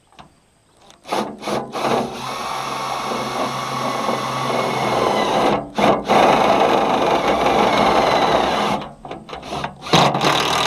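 Cordless impact driver running screws through a metal mounting bracket: a few short bursts about a second in, then long steady runs of several seconds with a brief stop between, and stop-start bursts near the end as the screws seat.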